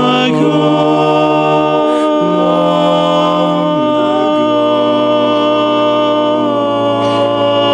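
Barbershop quartet, four unaccompanied male voices, singing sustained chords without words. The chord shifts a few times in the first four seconds, then one chord is held.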